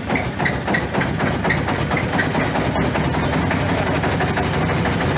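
The engine of a restored Jenbach portable air compressor running steadily, with a fast, even beat.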